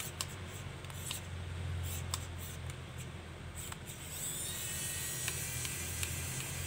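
Screwdriver undoing the small screws that hold the mounting bracket on a laptop hard drive: scattered light clicks, then scratchy metal-on-metal scraping over the last couple of seconds, over a low steady hum.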